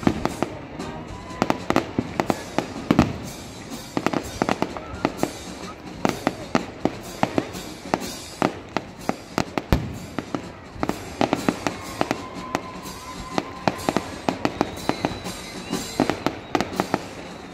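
Aerial fireworks display: shells bursting overhead in many sharp bangs, several a second, in quick irregular succession.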